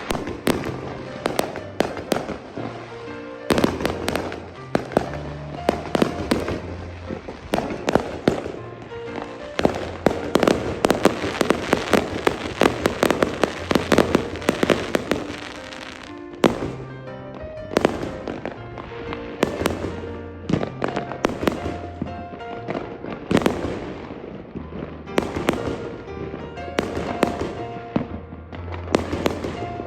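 Bonfire Night fireworks going off as many sharp bangs in quick succession, thickest in the middle, over background music with a steady beat.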